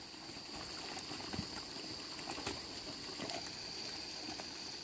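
Water trickling and running through a flooded, muddy terraced paddy field, with a steady high-pitched hum over it and a few faint knocks.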